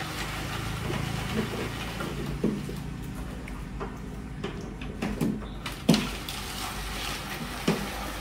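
Wet cement mortar being poured and shovelled into a plastic planter mold, with a few irregular knocks, the loudest about six seconds in.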